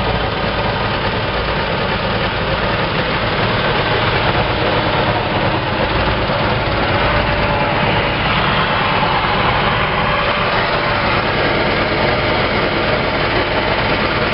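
Engine of a Rosco RA 200 trailer-mounted asphalt patcher running steadily at idle.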